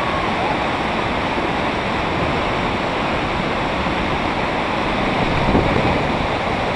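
Water pouring over a low river weir and churning into white water below it: a steady rushing noise.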